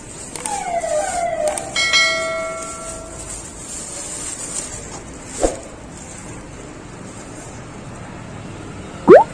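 Edited-in subscribe-button sound effects: a falling whoosh, then a bell-like notification chime ringing for about a second, about two seconds in. A short swish follows about five seconds in, and a loud rising whoosh comes near the end.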